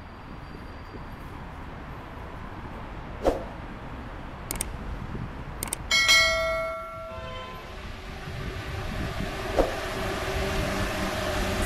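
A Paris Métro Line 6 rubber-tyred train running on the overhead viaduct, a rumble with a steady hum that grows louder over the second half. About six seconds in a single bell-like metallic ring sounds and fades.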